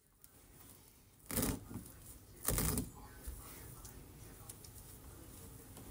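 A cut square of carpet being peeled up off the floor by gloved hands: two short tearing noises about a second apart, the first a little over a second in.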